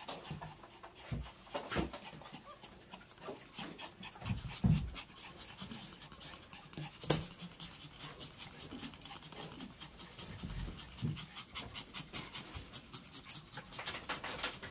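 Small dog panting steadily in quick, short breaths, with a few soft thumps and one sharp click about seven seconds in.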